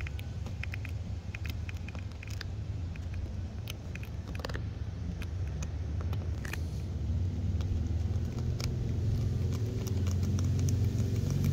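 Low engine rumble of a motor vehicle that slowly grows louder, with many small sharp clicks and ticks of a metal push pin picking at a chip in the windshield glass.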